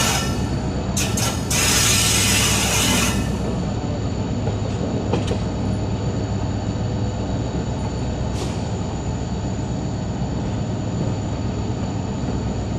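WDP4D diesel locomotive's EMD 16-cylinder two-stroke engine running with a steady low hum and a faint steady high whine. A loud hiss covers the first three seconds, and there are a couple of brief sharp clicks later on.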